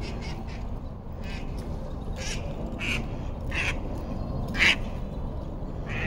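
Ducks quacking in short separate calls, about nine of them, the loudest a little before the end, over a steady low background rumble.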